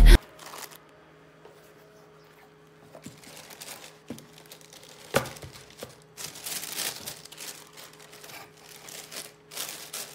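Tissue paper crinkling in scattered bursts as hands handle it in a cardboard shoebox, with one sharper tap a little after five seconds.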